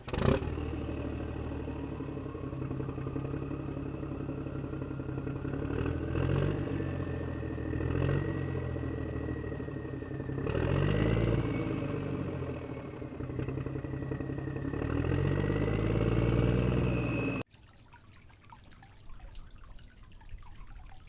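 A motor running steadily, its low hum dipping and rising in pitch several times, with a thin whine that climbs slowly in pitch over the first several seconds; it cuts off suddenly about 17 seconds in, leaving a faint dripping patter.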